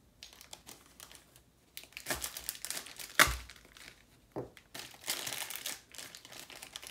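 Plastic MRE accessory packet crinkling and rustling as it is torn open and its contents handled, with a sharp thump about three seconds in.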